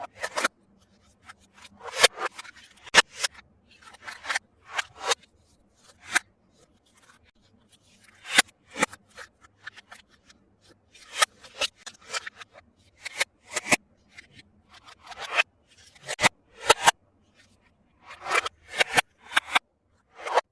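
Scissors snipping through toy packaging: irregular short cuts and rustles with some sharp clicks, in clusters with brief pauses between.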